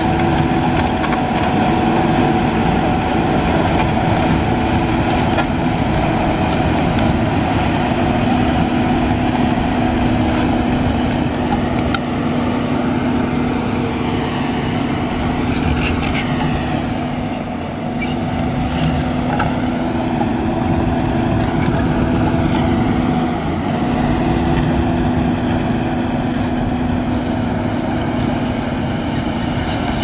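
John Deere 850K crawler dozer's diesel engine running steadily under load as it pushes sand. A higher whine rises and falls a few times in the middle, and the sound dips briefly a little past halfway.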